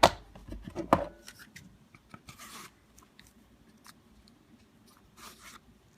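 A pistol and small holster being handled: two sharp clicks or knocks in the first second, a short rasping rub about two and a half seconds in, then faint ticks and rustling.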